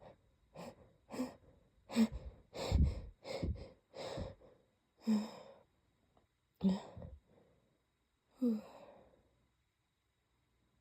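A person fighting an oncoming sneeze: a cluster of quick sniffs and catching breaths over the first few seconds, then three short separate voiced catches, each falling in pitch, as the sneeze is held back or stifled.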